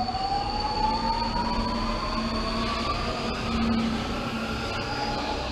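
Electric metro train pulling out of the station. Its traction motors whine in a pitch that rises steadily as it picks up speed, over a continuous rumble of wheels on rail, with a steady high whine alongside.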